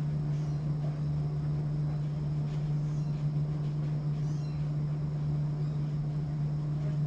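A few faint kitten meows over a steady low hum.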